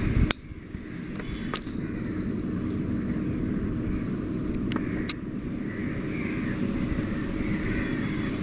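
Steady low rumbling background noise, broken by a few sharp clicks.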